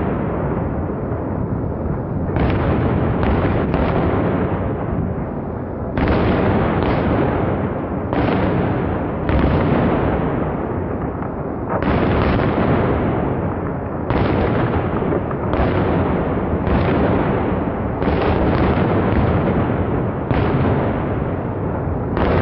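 Fireworks shells bursting in a steady barrage, a sharp boom every one to two seconds, each trailing off in a long echo over a continuous low rumble.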